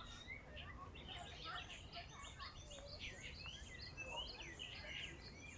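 Several birds chirping and whistling at once: a busy, overlapping run of short calls and rising and falling whistled notes, over a faint low background rumble.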